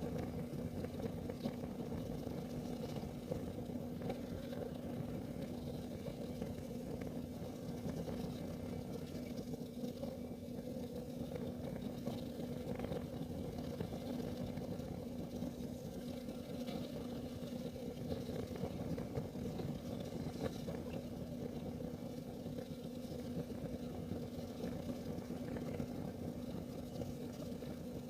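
Kerosene heater burning: a steady low rumble with a faint hum underneath and scattered light ticks.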